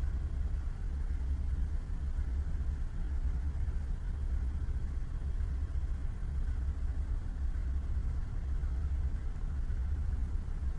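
Diesel locomotive engine running steadily, a deep, even low-pitched rumble.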